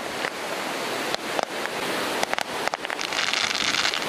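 Ocean surf and wind on the microphone, a steady rushing hiss that swells louder about three seconds in, with a handful of sharp pops in the first three seconds.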